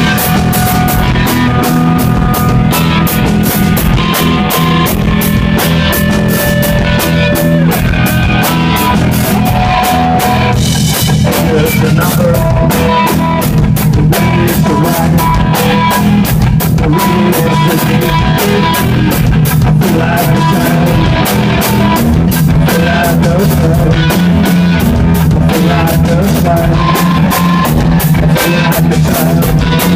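Rock band playing live: a drum kit and electric guitars, loud and continuous.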